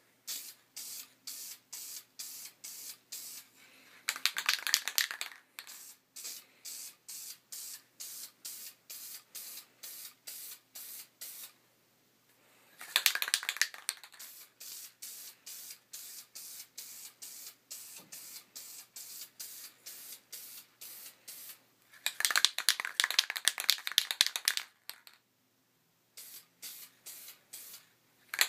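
Aerosol can of Krylon quick-dry spray paint in use. Three longer hissing sprays come a few seconds in, near the middle and near the end, the last one about three seconds long. Between them are short regular pulses, about three a second.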